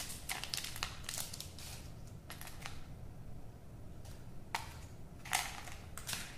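Crinkly wrapper packet and small plastic toys being handled: short crinkles, rustles and light plastic clicks, bunched in the first second and a half and again from about four and a half seconds on.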